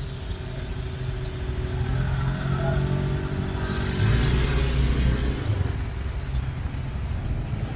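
Idling engines of stopped road vehicles: a steady low rumble with a hum, growing louder about four seconds in.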